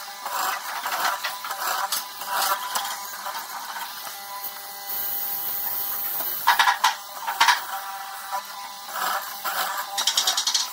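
Hollow-chisel mortising machine running with a steady motor hum while its square chisel bores into a pine board in bursts of cutting. Two loud, sharp knocks come a little past the middle.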